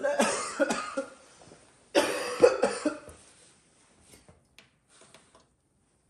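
A person coughing: two coughing fits about two seconds apart, each lasting about a second.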